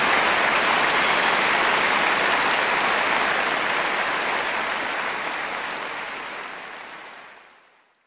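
Audience applause, steady at first, then fading out gradually over the last few seconds.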